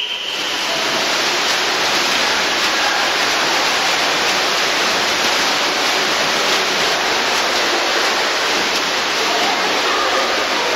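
Several swimmers racing freestyle, arms and kicking legs splashing in a steady rush of churning water, building up just after the start and then holding steady.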